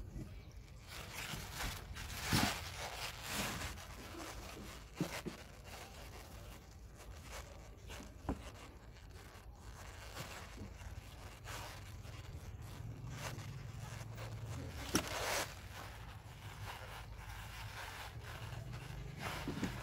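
Plastic bag packed with foam takeaway boxes rustling and scraping against a wooden bench as it is handled and lifted, with a few sharp knocks.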